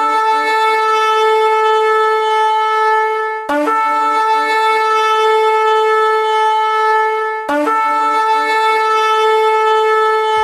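Shofar blown in three long, near-identical blasts of about four seconds each. Each blast opens on a brief lower note, holds a steady higher one, and cuts off abruptly.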